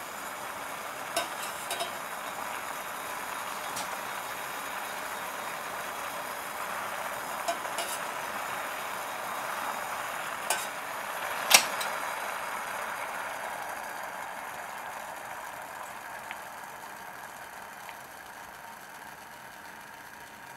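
A metal ladle clinks lightly against a stainless steel pot several times while skimming foam off simmering broth, the loudest clink just past halfway. Under it runs a steady hiss that fades in the last few seconds.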